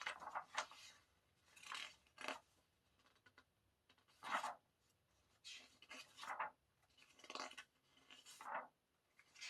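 Album booklet pages being handled and turned: a series of short paper rustles and swishes, about one a second.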